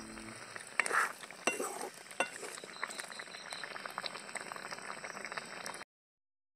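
Fish and rosella-leaf curry bubbling in a black iron pan while a metal spatula stirs it, with a few sharp clinks of the spatula against the pan in the first couple of seconds. The sound cuts off abruptly shortly before the end.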